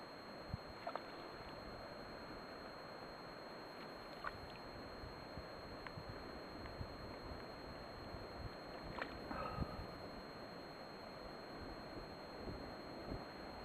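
Small waves lapping at the stony edge of a loch, under a steady wash of light wind on the microphone, with a few brief high chirps.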